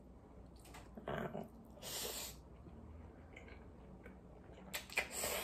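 A person slurping up spicy cold noodles, with a strong sucking slurp about two seconds in and another near the end, and a softer mouth sound about a second in.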